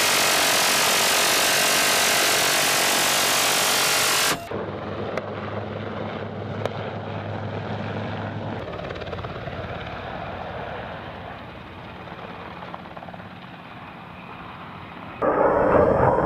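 Helicopter flight noise heard from inside an open-door cabin: a loud, steady rush of rotor and wind that cuts off abruptly about four seconds in. A quieter rumble follows with a couple of sharp cracks, and a louder rumble starts suddenly near the end.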